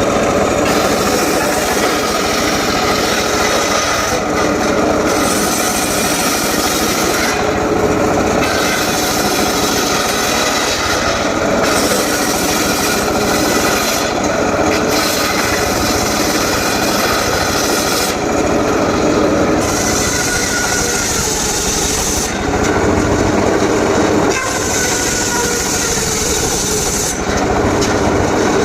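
A homemade circular saw running steadily and ripping mahogany, the high hiss of the blade in the wood breaking off briefly about every three to four seconds between cuts.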